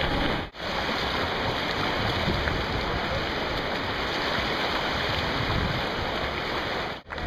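Churning, splashing seawater from a mass of swimmers thrashing through the water at a triathlon mass swim start, a dense steady wash of noise. It cuts out briefly about half a second in and again near the end.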